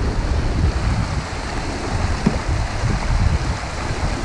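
Steady rush of river water running over shallow riffles, with low, uneven buffeting on the microphone.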